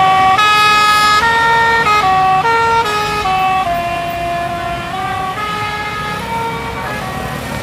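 Bus-mounted Basuri 'telolet' musical air horn with roof-mounted trumpets playing a melody: a run of held notes that step up and down every quarter to half second, slowly getting quieter, with a bus engine rumbling underneath.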